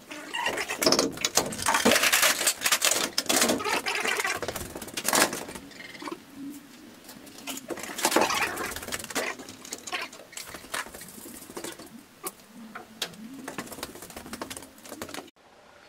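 A busy jumble of quick clicks, taps and scratchy rattles from people working inside an empty steel container. It is densest in the first half and thins to scattered clicks later.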